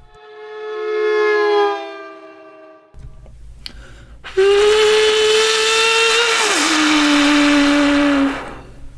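Beatboxer's mouth-made whistle-like sound effect: a held pitched tone that swells and fades, then after a short pause a louder, breathier held tone that drops in pitch partway through.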